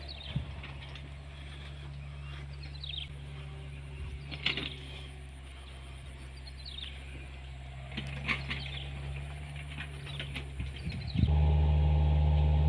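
An engine running steadily at a low pitch, with birds chirping short falling calls several times over it. About eleven seconds in, the engine suddenly gets much louder.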